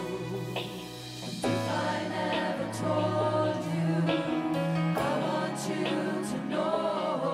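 Gospel choir singing with instrumental accompaniment. A short instrumental passage with a low bass line comes first, and the massed voices come in about a second and a half in.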